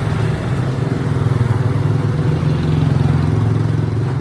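A motor vehicle's engine running close by, its steady low drone growing louder in the second half and then easing off.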